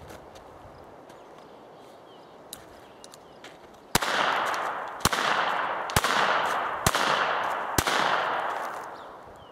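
Five shots from a North American Arms mini revolver in .22 LR, about one a second, each followed by a long echo that fades over most of a second. A few faint clicks come before the first shot, which lands about four seconds in.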